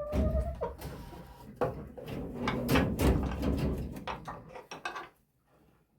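A run of knocks, clicks and rattles from a stiff pen gate being handled, over low rumbling handling noise.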